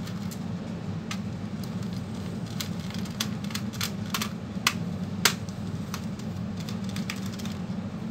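Irregular light clicks and ticks of hands working a screw and the plastic bottom case of a Dell 1545 laptop, with two sharper clicks about halfway through. A steady low hum runs underneath.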